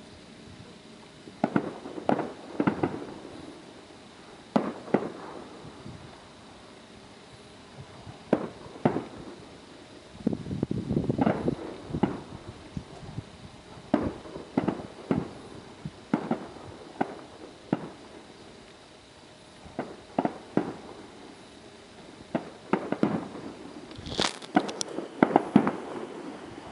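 Distant aerial fireworks shells bursting: sharp bangs come in irregular clusters of two to several, with short lulls between volleys.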